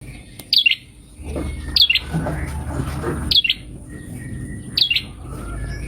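Red-headed prenjak calling: four loud, sharp two-note chirps, one about every second and a half. A low rumble sits under the middle calls.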